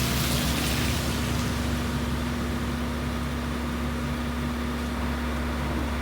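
Diesel engine of heavy earthmoving machinery running steadily with a constant low hum. A hiss fades out over the first second or two.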